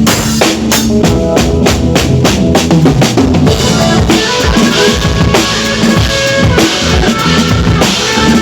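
Drum kit being played, with quick bass drum and snare strikes, along with pitched music underneath; a cymbal wash builds from about halfway through.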